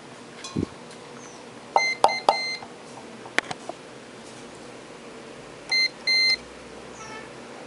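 Multimeter continuity beeper giving short electronic beeps while the corroded ground contact of an amplifier's input jack is tested: three quick beeps about two seconds in, then two more around six seconds. A few small clicks fall between them.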